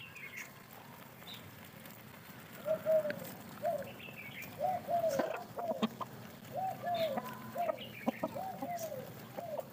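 Chickens feeding in a flock, clucking: after a quieter start, a string of short, rising-and-falling clucks begins about three seconds in and repeats once or twice a second, with a few higher chirps among them.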